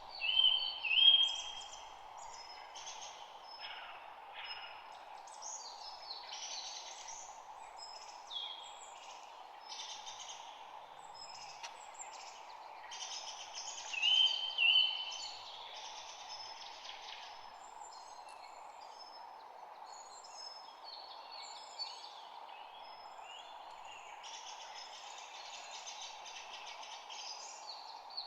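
Several birds singing and calling over one another, a busy mix of short high chirps and phrases over a steady background noise. The loudest calls are a pair of bright notes right at the start and again about 14 seconds in.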